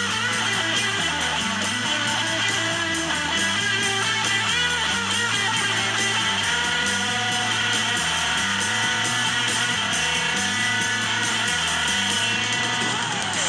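Background music with guitar and a steady repeating bass line.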